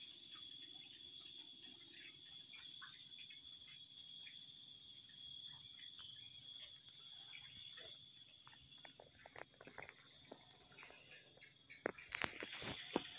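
Faint, steady high-pitched chirring of insects, with scattered small clicks and knocks that come more often and louder near the end.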